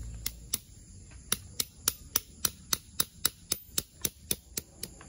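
Hammer driving a yellow-capped tent stake into the ground: two taps, a short pause, then a steady run of sharp strikes at nearly four a second, about sixteen in all.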